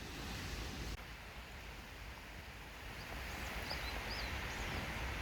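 Seashore ambience: a steady rush of wind and surf, with a few short, high bird chirps about three to four and a half seconds in.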